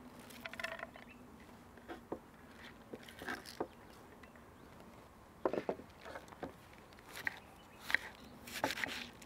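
Shredded white cabbage rustling as it is handled and dropped into a wooden bowl, with light knocks on the wood. Near the end comes a cluster of short knocks as a kitchen knife slices thin strips off a cabbage head onto a wooden cutting board.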